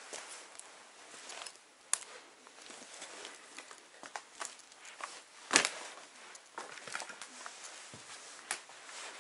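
Footsteps crunching on debris and old boards, with scattered clicks and one sharp knock about five and a half seconds in.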